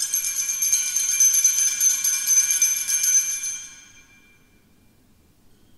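Altar bells (Sanctus bells) rung at the elevation of the consecrated host: a cluster of small bells shaken, ringing with a shimmering, pulsing jingle. The shaking stops about three and a half seconds in and the ringing dies away within the next half second.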